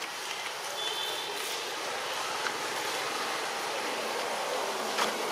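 Steady outdoor background hiss with no clear pattern, with a brief high chirp about a second in and a faint click near the end.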